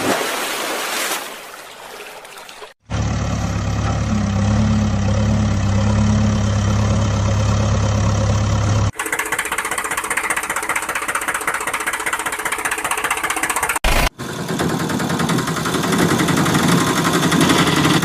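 Engine running sounds in several spliced segments that change abruptly: a steady low engine hum from about three seconds in, then a rougher, higher-pitched engine sound after cuts at about nine and fourteen seconds.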